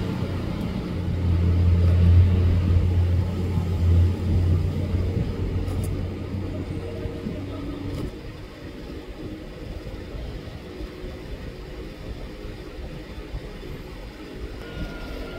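A low rumbling hum, loud for the first four seconds or so, then fading to a softer rumble after about eight seconds.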